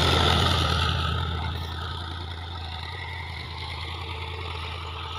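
Fiat tractor's diesel engine running steadily under load as it pulls a tine cultivator through the soil, growing quieter over the first two seconds as it moves away, then holding a steady hum.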